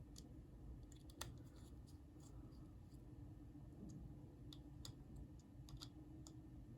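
Near silence with a few faint, sharp clicks of small metal parts: the pocket clip and its screws being fitted to a pocket knife with a small driver.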